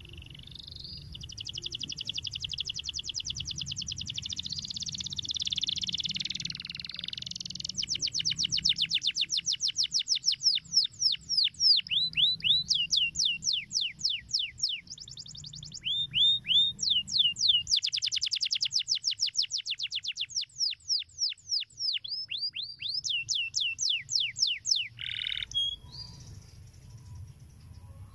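Domestic canary singing a long song of rapid trills and fast runs of repeated downward-sweeping notes, with brief pauses around the middle. The song stops a few seconds before the end.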